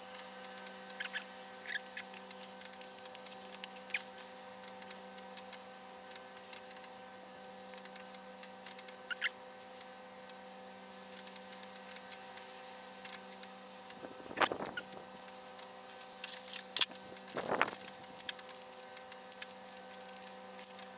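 Small clicks, taps and scrapes of hands seating a Continental Z129 rear main bearing cap and fitting its bolts on a freshly installed crankshaft, over a steady electrical hum. Two louder rustles come in the second half.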